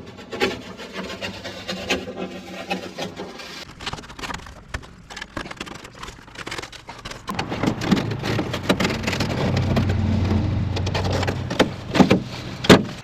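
Scraping, rubbing and rustling of template material being cut out and handled by hand. A louder stretch with a steady low rumble comes about halfway in, and there are two sharp clicks near the end.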